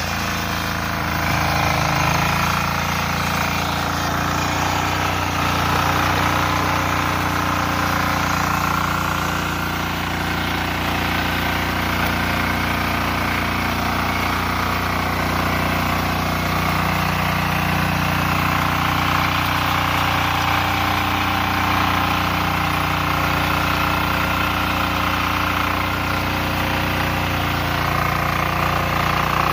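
Husqvarna TF 544 power weeder's single-cylinder air-cooled diesel engine running steadily as its rotary tines till the soil.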